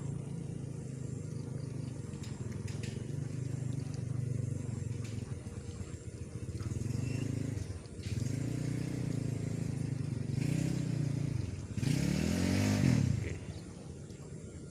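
A motor vehicle engine running, its pitch rising and falling several times. It is loudest about twelve seconds in, with a hiss, then fades away.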